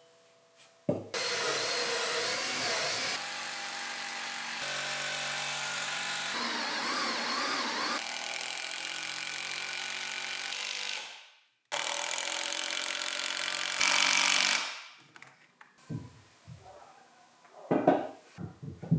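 Cordless impact driver driving screws into a timber workbench leg, running steadily in long stretches with one brief stop partway through and cutting out around three-quarters of the way in. A few wooden knocks follow near the end as timber legs are handled.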